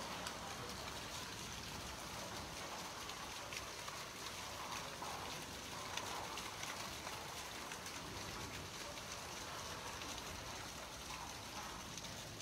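Steady heavy rain falling: an even hiss with many small scattered drop taps.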